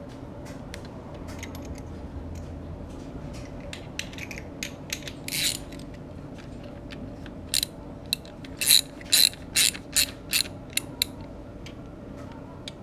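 Hand socket ratchet clicking as bolts are run in and tightened on the engine's underside: scattered light clicks at first, then a louder run of about ten strokes in the second half.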